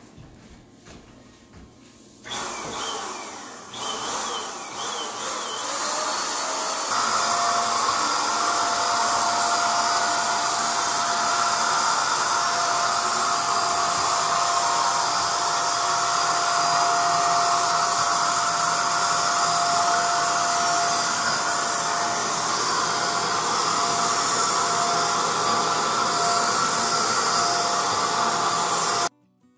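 Corded handheld electric paint sprayer spraying wall paint: it starts in a few short bursts a couple of seconds in, then runs continuously with a steady whine, and cuts off abruptly just before the end.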